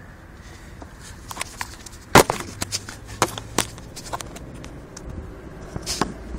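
Irregular sharp clicks and knocks as a phone is handled and bumps against parts in a car's engine bay. The loudest comes about two seconds in, with a few more over the next second and a half and one near the end, over a faint low hum.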